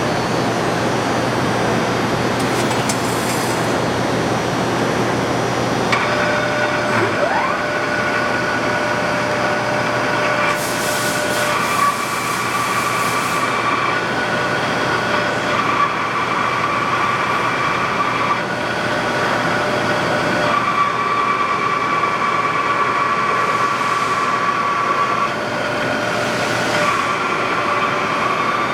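LAGUN FU3-LA horizontal milling machine running under power: a steady mechanical drone with whining gear tones. About six seconds in, the tones come in, and they then drop out and change pitch every few seconds.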